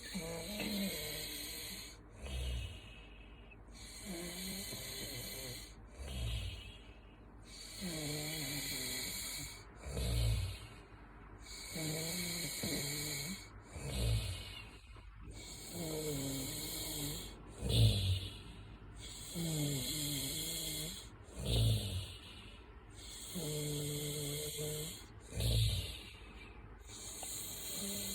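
A sleeper snoring in a steady rhythm, about seven breaths. Each cycle, roughly every four seconds, is a drawn-out pitched snore followed by a short, low puff.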